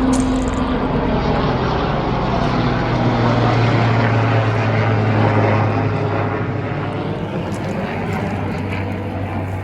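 An engine running steadily at an even pitch, a little louder in the middle.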